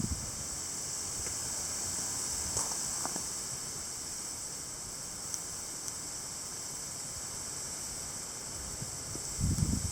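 Strong wind blowing through trees, a steady rushing hiss, with a gust buffeting the microphone near the end.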